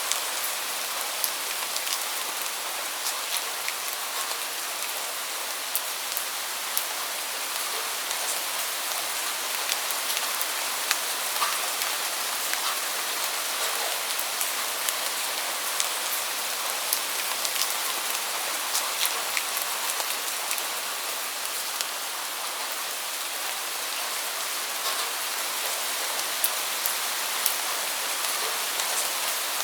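Steady rain falling: an even hiss with many sharp ticks of single drops scattered through it.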